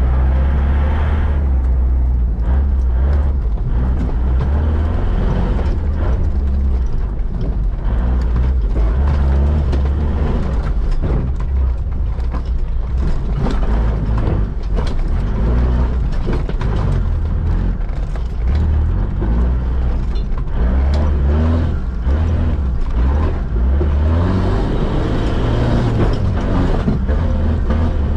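Mitsubishi Pajero off-road competition SUV driven hard over a rough dirt track, heard from inside its roll-caged cabin: the engine running under load, its pitch rising and falling, with frequent knocks and rattles from the body and suspension over the bumps.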